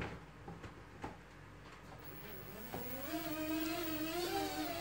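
Small electric motors and propellers of a homemade RC blimp spinning up, starting about three seconds in after a few faint handling clicks, then holding a steady high whine that rises slightly in pitch.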